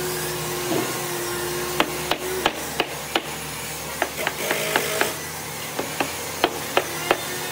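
A hammer knocking the rails of a wooden door frame together, seating the joints. It gives a string of sharp, irregular knocks over a steady hum.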